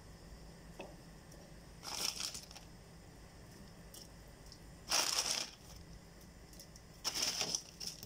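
Thin plastic bag crinkling as it is handled, in three short bursts, about two, five and seven seconds in; the middle one is the loudest.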